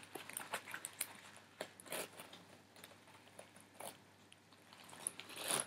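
Nylon webbing straps and pouch flaps of an olive-green military-style vest being handled, making faint scattered clicks and rustles, with a longer, louder rasp near the end.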